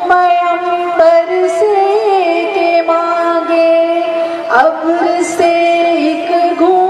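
Women's voices singing a Naat, a devotional song in praise of the Prophet Muhammad: a lead singer backed by a group, holding long drawn-out notes with wavering melodic turns between them.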